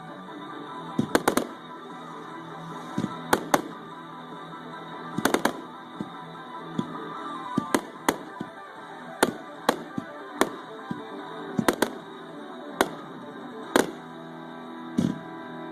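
Fireworks shells bursting in sharp bangs, one or two at a time about every second, over steady background music.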